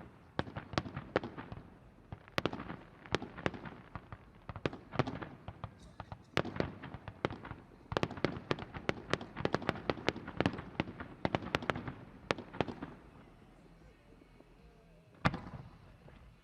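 Fireworks going off in a rapid barrage of sharp bangs, several a second. The barrage thins out after about thirteen seconds, and one last loud bang comes near the end.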